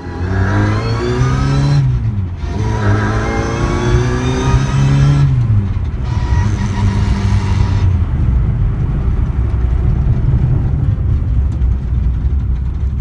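Cox GTM kit car's 1070cc engine running: revved up twice in quick succession, each rev falling back, then settling to a steady idle.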